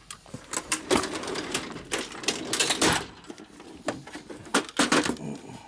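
Small metal hardware, washers and bolts, clinking and rattling as someone rummages through a parts drawer. There is a dense run of clatter over the first few seconds and a few more clicks near the end.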